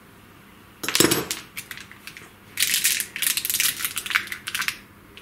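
Hands fitting a plastic zip tie around a cable in corrugated conduit. There is a knock about a second in, then a couple of seconds of rapid plastic clicking and rattling.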